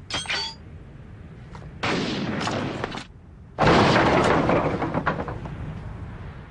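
Action-film sound effects: a brief metallic clink, a burst of noise about a second long, then a loud sudden blast about three and a half seconds in that dies away over the next two seconds.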